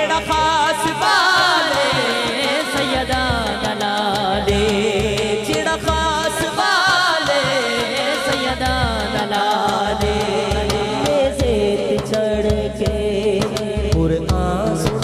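Devotional Punjabi qasida sung by a man into a microphone: long, wavering melismatic lines with vibrato, over a low repeating drum beat.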